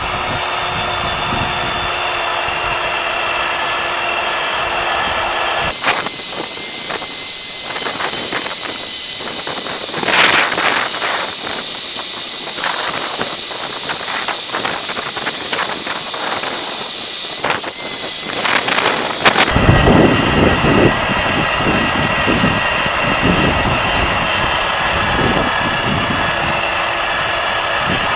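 Cordless drill spinning a rubber eraser wheel pressed against a fibreglass boat hull, rubbing off old vinyl letters: a steady whine with the scrub of the wheel on the hull, its sound changing abruptly twice.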